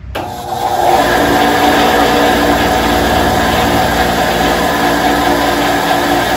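SKIL 9-inch 120-volt benchtop bandsaw switched on. The motor and blade come up to speed over about the first second, then run steadily with a constant hum.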